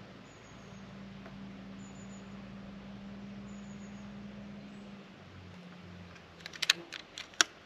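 A quick run of about five sharp mechanical clicks in the space of a second near the end, the Reximex Pretensis PCP air rifle's action being worked to cycle the next pellet. Before them, a faint steady low hum.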